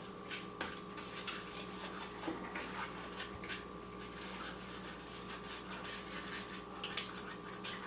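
Faint, scattered small clicks and soft taps from handling cups and stirring slime, over a steady low electrical hum.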